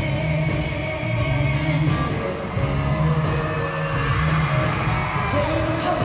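Live band music with a woman singing lead into a microphone, heard through a large arena's PA from within the crowd.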